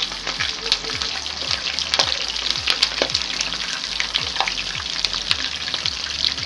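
Marinated mackerel pieces frying in hot vegetable oil: a steady sizzle with constant small crackling pops.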